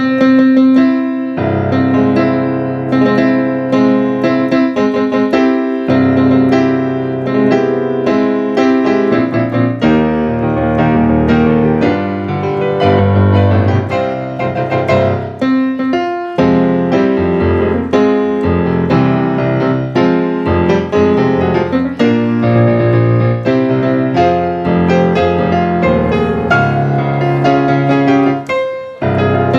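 Piano playing: a continuous run of melody notes over sustained chords, with a brief break in the sound about a second before the end.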